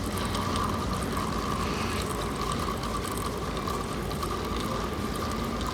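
Steady rushing noise with a constant high hum running through it.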